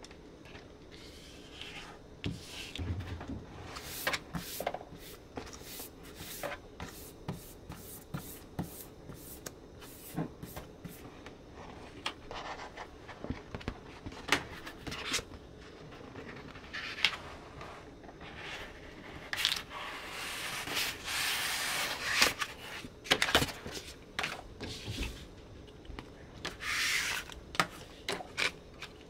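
Sheets of paper handled and slid on a wooden desk: rustling and light taps. Partway through comes a few seconds of continuous rubbing, and a shorter one near the end, as a printed sticker sheet and a covering sheet are laid and smoothed down.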